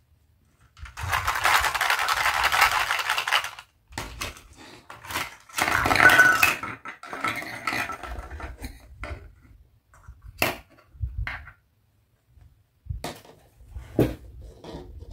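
Hard plastic toy food pieces and a plastic basket are handled on a tabletop. A dense crinkling rustle comes first, then the pieces clatter and knock as they are tipped out and set down one by one. A few sharp plastic clicks come near the end.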